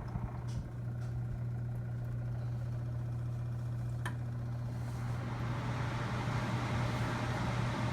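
Honeywell CHS122AE evaporative air cooler running with a steady low hum and the rush of its fan, with a couple of faint ticks. This is the loud running noise the owner finds abnormal on a brand-new unit, blamed on the oscillation and the water pump.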